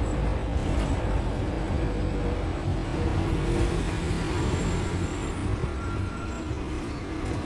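Steady engine and road rumble heard from inside the cabin of a Hong Kong public light bus (minibus) on the move in city traffic.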